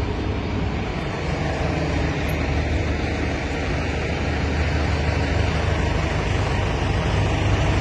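Isuzu FTR concrete mixer truck's diesel engine running steadily with a low hum, getting slightly louder toward the end.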